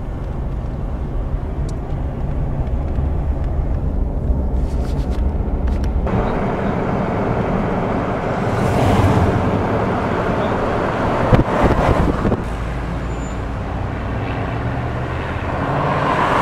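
Car engine and tyre noise from inside the cabin while driving. The road noise grows broader and louder about six seconds in, with a couple of short knocks a little past halfway.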